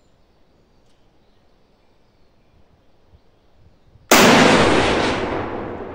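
A single rifle shot from a Yugoslav Mauser M48A in 8x57 IS, about four seconds in, firing a handload of period bullets and period powder. It has a long echoing decay under the covered range's roof.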